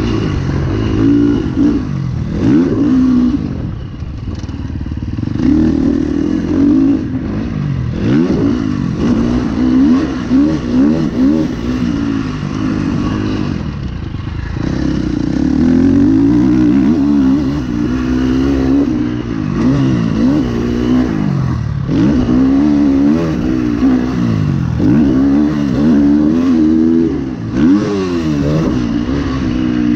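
KTM 350 SX-F's four-stroke single-cylinder engine, heard from on the bike, revving up hard and rolling off again and again as the bike accelerates, shifts and slows around a dirt motocross track.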